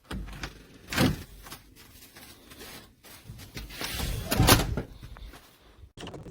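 Door with a smart lock and handle being worked just after unlocking: rattles and thuds of the handle, latch and door, loudest about a second in and again around four and a half seconds in.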